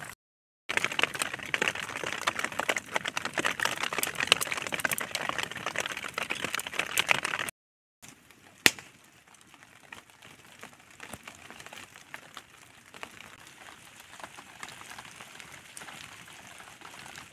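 Rain pattering, a dense run of small drop clicks. It drops out briefly twice, and is louder in the first few seconds than after the second break, where one sharper tick stands out.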